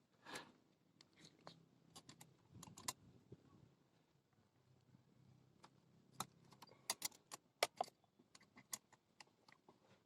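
Faint, scattered light clicks and clinks of small metal parts and hand tools being handled, with a quick cluster of sharper clicks a little past the middle.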